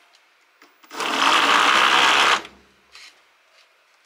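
Hoverboard hub-motor wheels, two 250 W motors run from one controller without Hall sensors, throttled briefly. A loud buzzing whir starts about a second in and dies away after about a second and a half. The second wheel has been failing to start, which the builder puts down to it having more load.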